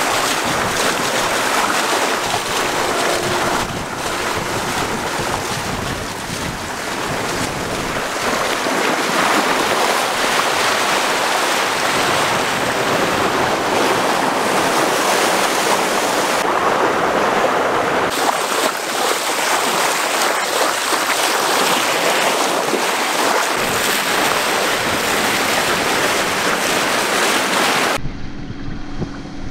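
Wind buffeting the microphone over the rush and splash of choppy water along a sailing yacht's hull as it moves under way. Near the end the wind noise drops away abruptly, leaving a quieter steady hum.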